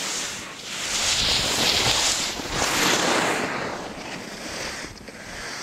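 Skis sliding and scraping over packed snow on a downhill run, with wind rushing over the microphone. The hiss swells loud from about a second in until past three seconds, then eases off.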